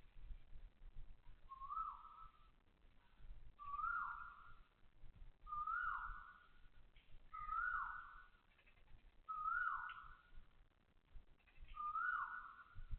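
Asian koel calling over and over: six calls about two seconds apart, each a clear whistled note that rises and then swoops down.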